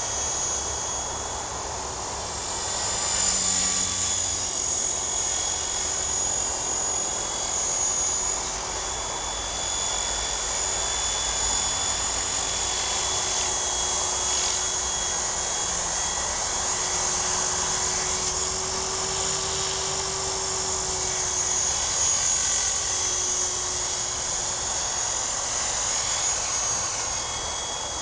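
Sonix SX 450 SE radio-controlled helicopter in flight: the motor and rotor blades give a steady high whine that drifts slightly in pitch and swells in loudness now and then.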